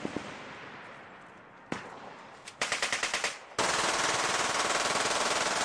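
Handgun with a drum magazine firing on full auto: a few shots at the start that ring out and fade, a single shot, a quick burst of about eight rounds, then, about three and a half seconds in, one long unbroken stream of fire.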